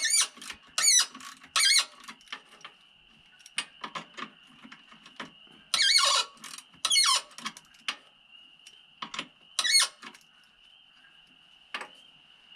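Six loud, high-pitched squeals with a wobbling pitch, each under half a second, spread irregularly over a few seconds with small clicks between them, over a steady thin high-pitched tone in the background.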